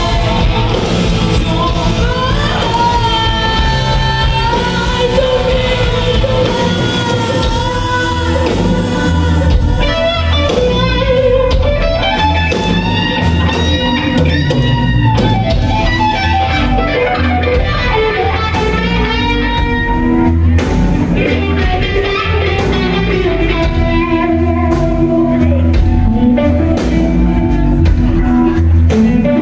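Live rock band playing: a woman singing lead over electric guitars, bass and drums.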